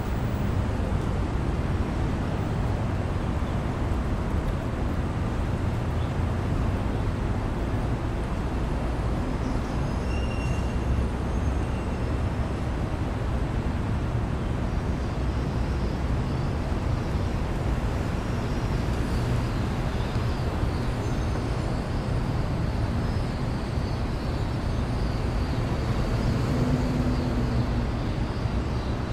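City alley ambience: a steady low rumble of the city with no single event standing out. A faint high whine comes in during the second half.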